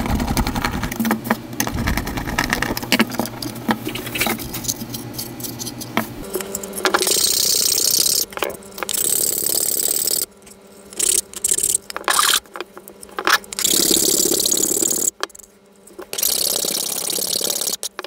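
Screws being driven into a small plywood box, a run of clicks and creaks with a steady hum under it for the first six seconds. Then a file is rubbed along the wooden edges in rasping strokes, several of them separated by short pauses.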